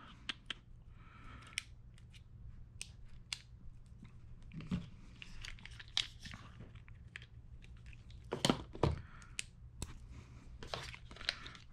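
Irregular light clicks and taps of small hand tools being handled: a Wera bit ratchet and bits being fitted into the Tool Check Plus kit's plastic holder, with a couple of louder clicks near the end.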